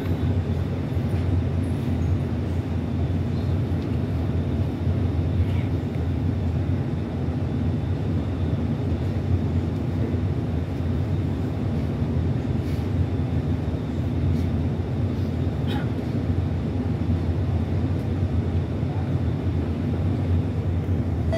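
Steady low hum inside an R151 MRT train car standing at a platform with its doors open, the train's air-conditioning and auxiliary equipment running. A faint high steady tone sits over it, with a few faint clicks.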